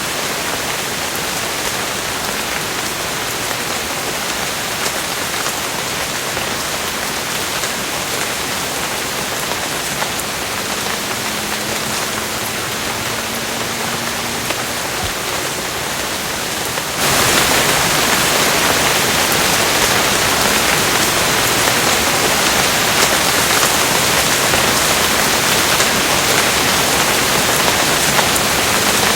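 Rain falling steadily, an even hiss with scattered drop ticks. About two-thirds of the way through it suddenly becomes louder and brighter, like heavier rain.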